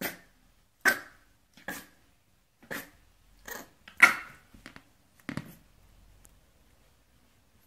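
French bulldog puppy trying to bark for the first time: a string of about eight short barks, roughly one a second, the loudest about four seconds in.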